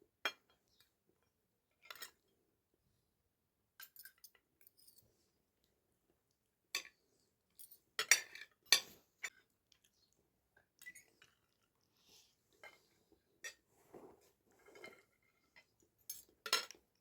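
Dishes and cutlery clinking now and then, in short separate knocks and clinks with quiet gaps between; the loudest come in a cluster about halfway through and again near the end.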